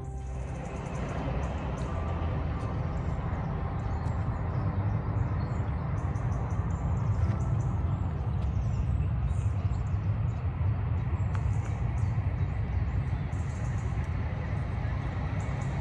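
Steady low rumble of outdoor ambience, with faint high bird chirps now and then.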